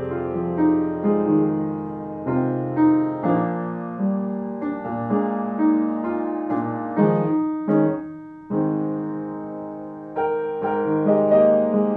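Piano background music: notes and chords struck and left to ring out, a new one about every half second to a second.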